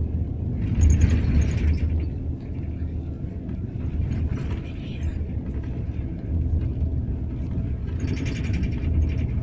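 A man snoring loudly in his sleep: three snores about every three and a half to four seconds, over the steady low drone of the bus engine.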